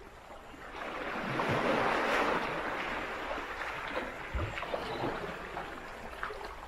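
Small waves washing in over a rocky shore, the wash swelling about a second in and slowly ebbing away, with a few light ticks of water among the stones.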